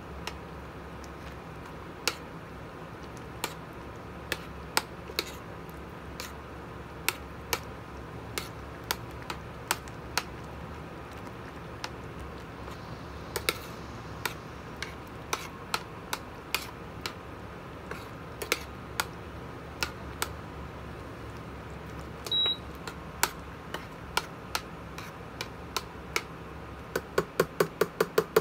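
Metal spoon clicking and scraping against a stainless steel pan while stirring thick bean stew, sharp irregular clicks every second or so. Near the end comes a quick run of ringing taps on the pan, and about two-thirds through a short high beep sounds once.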